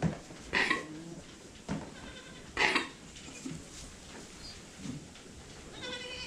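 Boer goats bleating: several short, harsh bleats, then a clearer, higher-pitched bleat near the end.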